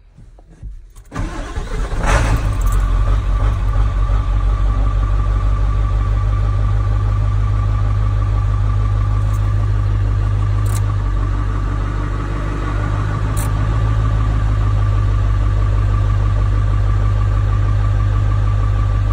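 Ford 7.3 Powerstroke turbo-diesel V8 cranking for about a second, catching and settling into a steady idle, heard from inside the cab. This is the engine's first start after conversion to an electric fuel system.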